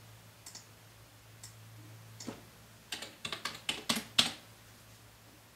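Typing on a computer keyboard: a few scattered key clicks, then a quick run of keystrokes about three to four seconds in.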